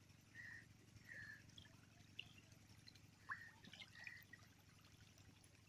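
Faint splashing and dripping of water from a crowd of hybrid magur catfish churning at a pond's surface, with a few short, high plops.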